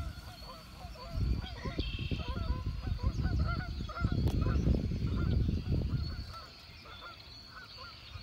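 A flock of geese honking, many short calls overlapping and repeating. Under them is a louder low rumbling noise that comes and goes and dies away after about six and a half seconds.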